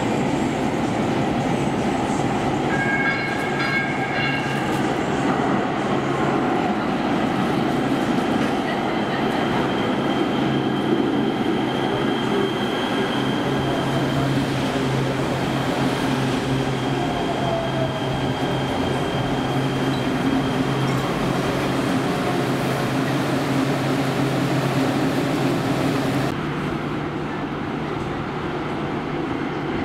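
LA Metro light rail train pulling into an underground platform: a steady rumble of wheels and motors, with a thin high wheel squeal through the middle. Near the end the sound cuts to a quieter rumble as another train approaches.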